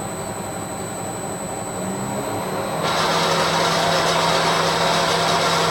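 Motor-driven machine running as its speed is raised; about three seconds in, its sound jumps louder, a rushing noise with a steady low hum under it. This is the abnormal noise the machine makes before adjustment once its speed reaches about 300 rpm.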